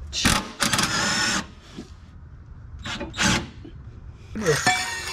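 Cordless power ratchet running in three short bursts, a whirring motor with a rattle, as it turns a rear shock mounting bolt on a Fox-body Mustang.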